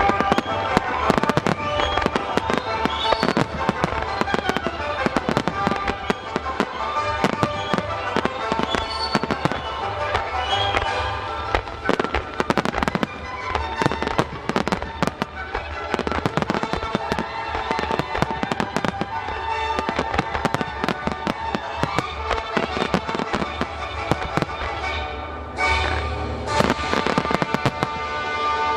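Aerial fireworks shells bursting in rapid, overlapping volleys, a dense cluster of bangs near the end, over music playing throughout.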